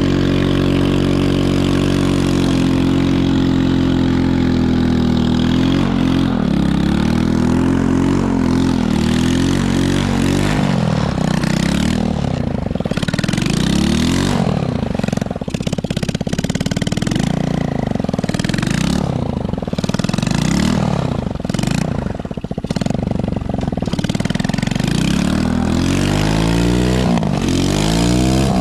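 Chinese 110cc ATV's small single-cylinder engine, running at a steady speed for the first five seconds or so, then revving up and falling off over and over as the quad is slid around on snow.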